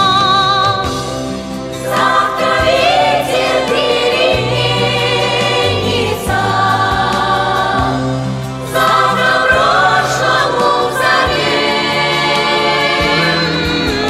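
Music: a choir singing long notes with vibrato over a steady bass accompaniment, softening briefly twice.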